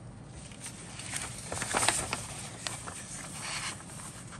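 Paper rustling and crackling as a folded model-kit instruction sheet is handled and turned to another page, loudest about two seconds in.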